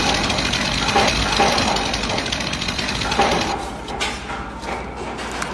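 Loud, rapid, continuous mechanical hammering from a construction power tool. It stops about three and a half seconds in, leaving scattered knocks and clatter.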